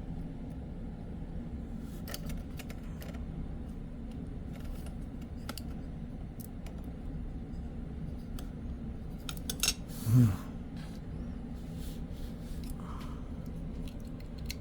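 Scattered small clicks and taps from hands and a tool working on the computer's internal parts and cables, with one louder knock about ten seconds in, over a steady low hum.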